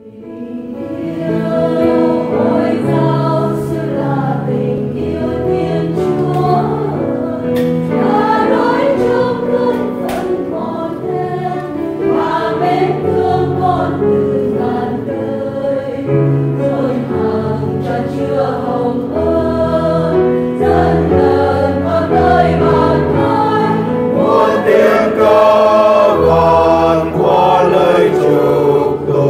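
Choir singing a hymn over steady low accompanying notes, fading in at the start.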